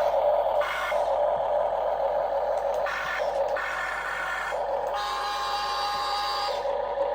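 Small electric motors and gearboxes of a radio-controlled model machine whirring in changing spurts as it works, with a steady whine for a second or so near the end.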